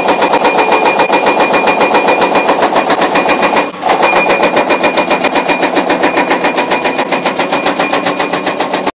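CMB CM 550 TP hydraulic breaker on an excavator hammering steadily at about eight blows a second, with a brief pause a little under four seconds in.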